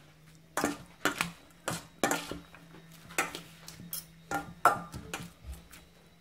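Two metal forks tossing salad in a stainless steel bowl: irregular clinks and scrapes of metal on metal, about ten in all, starting about half a second in. A faint steady low hum runs underneath.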